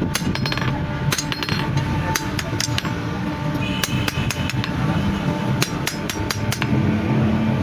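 Hammer striking metal on an anvil in an irregular run of blows, some of them ringing briefly: steel being hand-forged.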